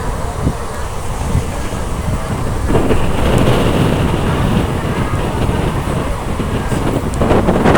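Passenger train running on the rails: a steady rumble of wheels and carriages with wind on the microphone. It grows louder about a third of the way in, and an even rhythmic clatter starts near the end.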